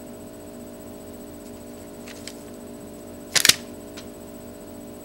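Handling noise: a couple of faint clicks, then a brief loud rustling knock about three and a half seconds in, over a steady low hum.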